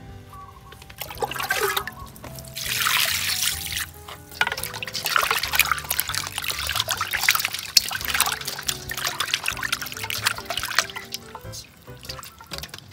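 Water pouring into a stainless steel bowl, then hands swishing and scrubbing salted whole catfish in the water with splashing, which eases near the end.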